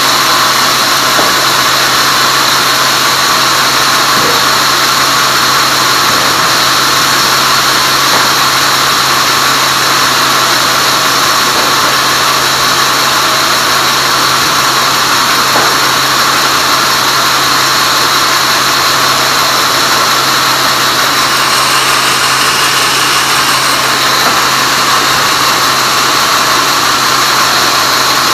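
Tong Yang sawmill bandsaw running steadily, its loud continuous machine noise carrying a constant low motor hum and a steady high whine.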